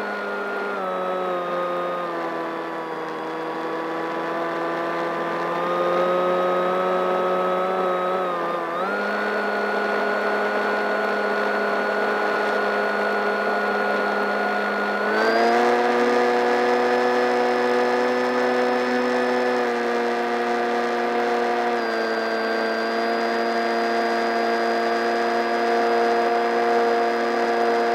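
Electric motor and propeller of a Fowl Flyer RC plane, picked up by a camera riding on the plane, running with a steady whine whose pitch follows the throttle: it drops just after the start, climbs back about a third of the way in, steps up about halfway through, then eases down a little.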